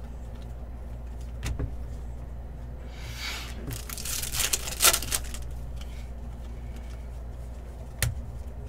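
Trading cards and pack wrappers being handled: a short rustle about three seconds in and a few light clicks, over a steady low hum.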